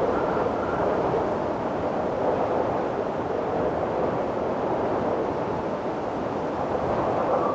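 Steady wind blowing in a continuous rushing whoosh, with a faint whistling tone that fades in and out.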